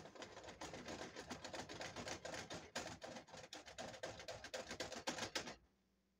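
A saucepan being shaken and slid back and forth on an electric coil burner, rattling and scraping against the coil in a dense run of rapid clicks that stops abruptly near the end.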